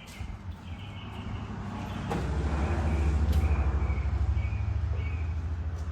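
A low, pulsing motor rumble that swells about two seconds in, starting with a knock, with faint high chirps over it.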